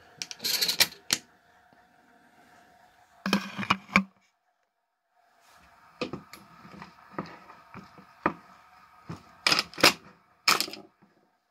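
Shotgun shells being pushed one after another into the tube magazine of a Maverick 88 12-gauge pump shotgun: clusters of sharp metallic clicks and clacks as each shell passes the shell stop and lifter, the loudest near the end.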